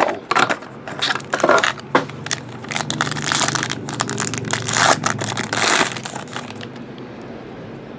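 Packaging of a trading-card hobby box being torn open: irregular crinkling and tearing of wrapper material for several seconds, dying down near the end.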